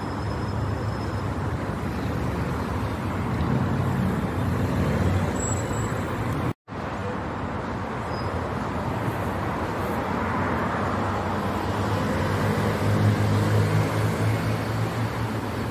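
Steady city street traffic noise, a low rumble of cars and minibuses going by, with a momentary dropout about six and a half seconds in where the audio cuts.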